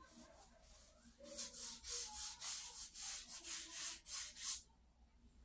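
Charcoal rubbed across sketchbook paper in quick back-and-forth strokes, a dry scratchy hiss about three or four strokes a second, starting about a second in and stopping suddenly near the end.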